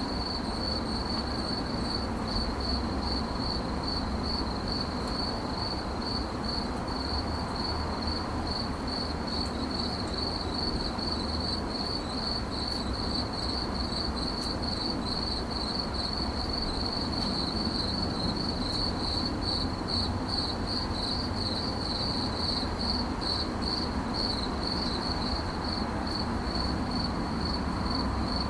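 A cricket chirping in dry grass: a continuous high-pitched trill of rapid, even pulses that holds steady throughout, over a low background rumble.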